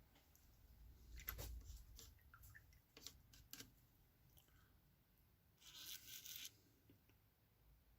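Near silence with faint small clicks and taps, and a brief scratchy rustle about six seconds in: small handling noises at a painting desk.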